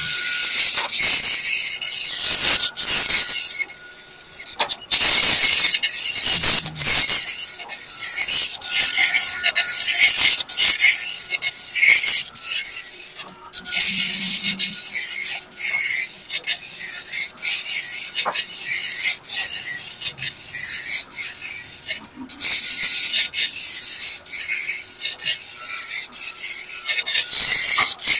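Epson LQ-2190 24-pin dot-matrix printer printing a test page: the print head rasps as it sweeps back and forth across the paper, with a few brief pauses between passes. The printer is working normally again.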